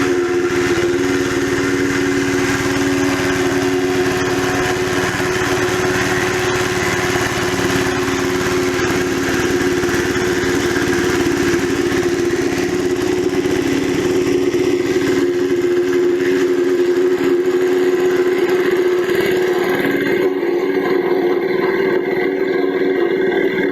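Engine-driven wood chipper running at steady speed, a constant hum under a dense rushing noise; the high-pitched part of the noise thins out about twenty seconds in.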